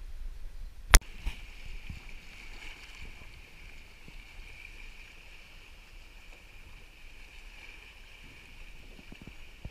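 Kayak on open lake water: a faint steady hiss of water washing and paddle splashes around the hull, with one sharp click about a second in.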